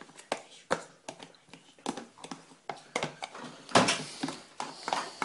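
Metal fork tapping and scraping against the bottom of a plastic tub while mashing hard-boiled egg yolk and water into a paste: irregular clicks several times a second, with a louder scrape about four seconds in.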